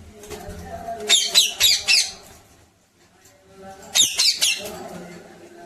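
Pet parrot squawking in two bursts of rapid, shrill repeated calls, the first about a second in and the second near four seconds.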